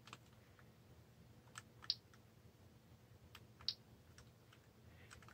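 A few sharp plastic clicks from a Philips Nino handheld PC being handled and pressed, two of them coming in quick pairs, over quiet room tone.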